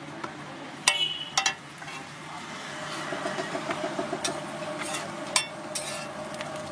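A metal spatula clinks sharply twice on a street-food griddle, then works in quick rhythmic scraping and chopping strokes, with another sharp clank a few seconds later.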